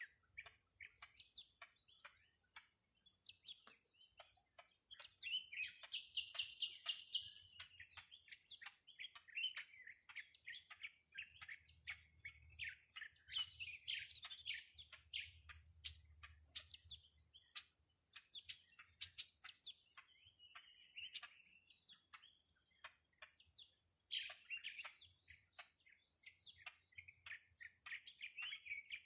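Songbirds chirping and twittering, faint: a steady run of quick high chirps with a few fuller warbling bursts.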